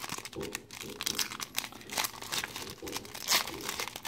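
Foil wrapper of a Panini Contenders Draft Picks trading-card pack being torn open and crinkled by hand: irregular crackling, loudest about three seconds in.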